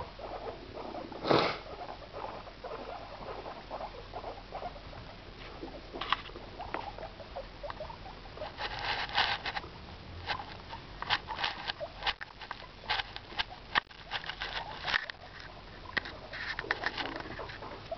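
Guinea pigs moving about at close range, making small scratchy clicks and rustles that come in clusters. There is one louder short noise about a second and a half in.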